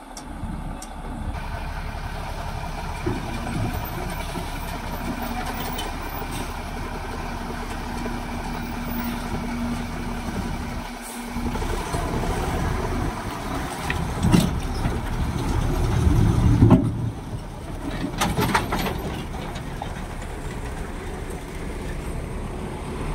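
Ashok Leyland truck's diesel engine running under load as the truck drives off a river ferry up the plank ramp onto the bank, getting louder about two-thirds of the way through, with a few knocks as it goes over the ramp.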